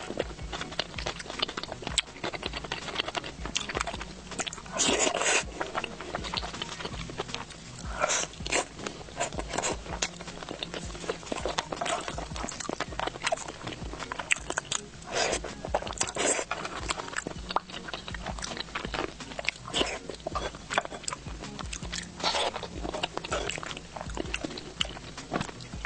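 Close-miked chewing and gnawing on meat in chili oil: wet smacking mouth sounds and small clicks, with a few louder bites.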